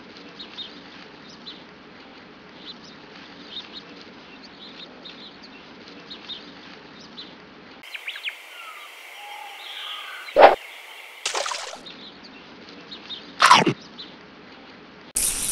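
Forest ambience of small birds chirping faintly over a steady background hum. After a change of scene, three short sharp sound effects come a few seconds apart, the first of them the loudest.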